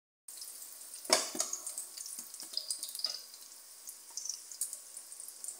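Egg and sausage omelette frying in oil in a non-stick pan: a steady sizzle with scattered crackling pops. A slotted metal spatula knocks and scrapes against the pan about a second in, the loudest moment, and again more lightly around three seconds.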